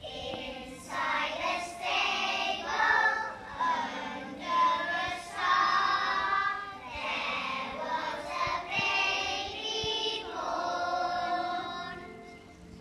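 A group of young children, about five or six years old, singing a song together in unison. The singing stops shortly before the end.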